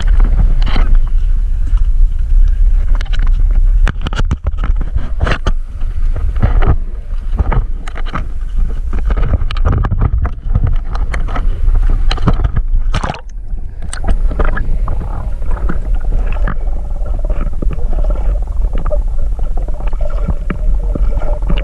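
Seawater gurgling and splashing around a camera as it moves through the surface and back under, over a heavy low rumble. There are many short splashes and knocks throughout.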